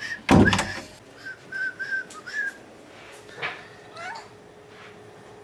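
A loud bump just after the start, then a cat giving a run of short chirping meows and a couple of falling meows.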